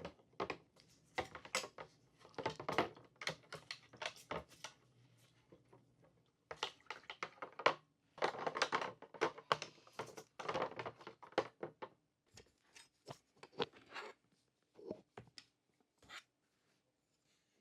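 Hands working on the parts of a 1:18 scale diecast model car: irregular small clicks, taps and scraping rustles, coming in busy clusters and thinning out near the end.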